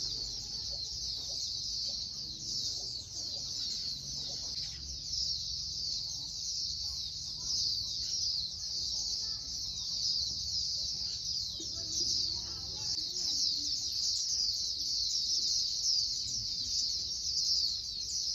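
A dense chorus of many small birds chirping together, a steady mass of short, high, falling chirps, over a low rumble.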